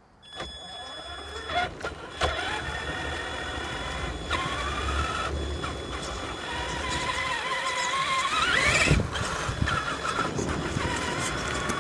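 Traxxas Summit RC truck's electric motor and drivetrain whining as it drives, the pitch rising and falling with the throttle and climbing steeply about eight seconds in before cutting off suddenly. Short knocks as the truck rolls over the sidewalk's joints.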